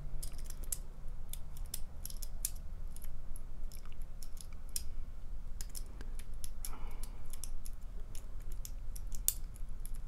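Irregular small metallic clicks and ticks of a Sparrows short hook lock pick and tension wrench working the tightly spaced pin-tumbler pins of a small plug-lock cylinder, single-pin picking with the pins not yet set.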